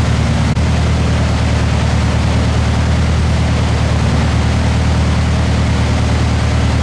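Honda four-cylinder engine idling steadily on a chassis dyno after a pull, under a steady rush of noise, with one brief click about half a second in.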